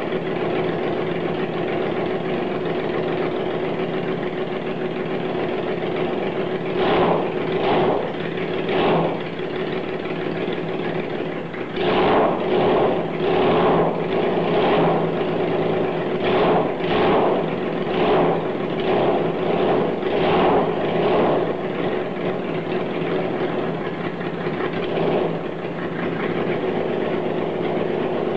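Freshly rebuilt engine on its first run after the rebuild, idling steadily with short throttle blips: three about seven to nine seconds in, then a quick run of them from about twelve to twenty-one seconds, before it settles back to a steady idle.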